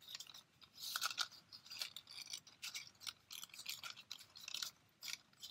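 Red cardstock petals rustling and crinkling under the fingers as they are pressed and held together for the glue to grab, in short irregular scratchy rustles.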